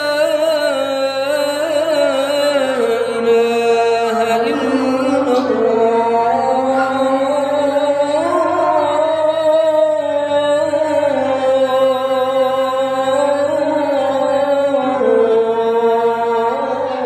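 A man chanting the adhan, the Islamic call to prayer: long, unbroken melismatic phrases, each note held and the pitch winding slowly up and down.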